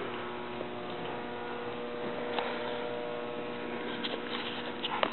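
Steady electrical hum with several even tones held throughout, and a few faint ticks near the end.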